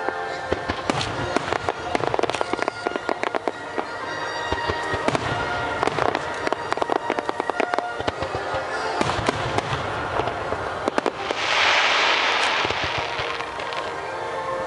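Music starmine fireworks: a rapid run of sharp bangs and pops from shells bursting, over the music the display is set to. About 11 seconds in, a dense hiss swells for a couple of seconds and fades.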